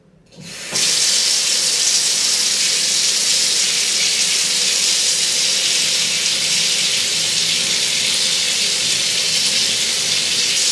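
A bath mixer tap turned on, water gushing steadily into the bathtub to fill it. It starts suddenly just under a second in and then runs evenly.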